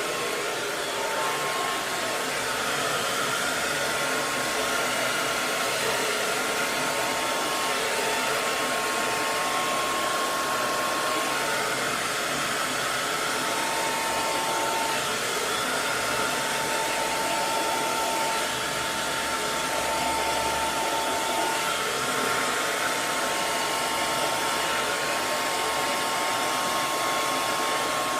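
Hair dryer running continuously: a steady, even rush of airflow noise with a faint steady whine near 1 kHz.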